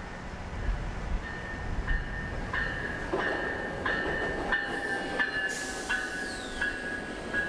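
VIA Rail Siemens Charger (SCV-42) locomotive and its coaches passing close by as the train slows into the station. A steady high squeal runs under wheels clicking over rail joints, about one click every 0.7 s.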